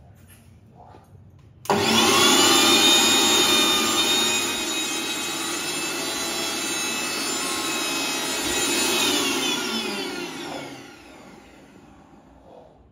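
Electric mixer grinder switched on about two seconds in, its motor running at high speed with a steady whine. About seven seconds later it is switched off and winds down, its pitch falling as it fades.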